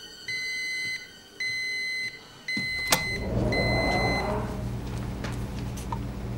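Electronic alarm beeping with long, even beeps about once a second, warning of a rising temperature; the beeps stop about four seconds in. A sharp click comes near the three-second mark, and right after it a low steady machine hum sets in, with a rising rush of noise over it.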